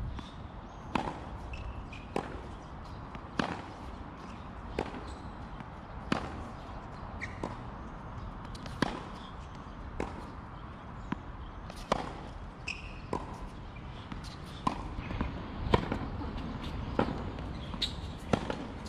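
Tennis ball struck by a racket and bouncing on a hard court during a rally: sharp pops about a second apart over steady outdoor background noise.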